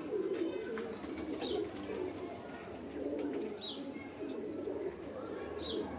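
Domestic pigeons cooing in phrases that repeat through the clip, with three short high falling chirps about two seconds apart.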